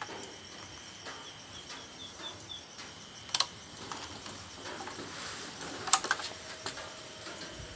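Crickets trilling steadily, with a short run of chirps about two seconds in. A few sharp clicks and knocks from handling sound over them, the loudest about six seconds in.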